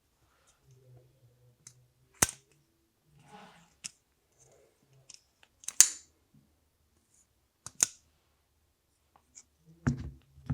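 QSP Vault folding knife being opened and closed by hand: a series of sharp metallic clicks and snaps, the loudest about two, six and eight seconds in, with softer handling sounds between.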